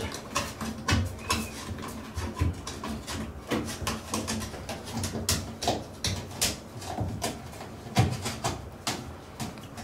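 Irregular clicks, knocks and scraping from hand work on a front-load washing machine's rubber door gasket and its wire spring clamp, worked free with a flat screwdriver.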